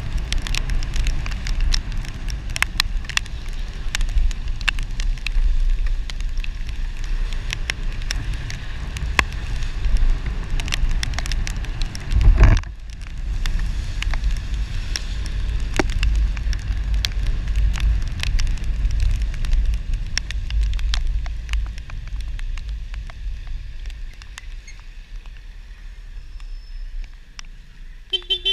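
Motorcycle riding through heavy rain, heard on its camera microphone as a steady low wind rumble with raindrops ticking on the camera. A louder thump comes about twelve seconds in.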